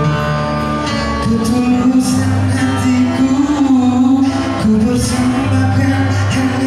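A man singing a song live, holding long notes, with guitar and bass accompaniment.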